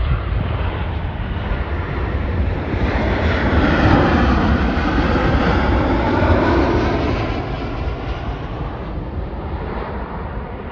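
Jet airliner passing low overhead: its engine noise swells to a peak about four to seven seconds in, with a sweeping whoosh as it goes by, then fades. A steady low rumble runs underneath.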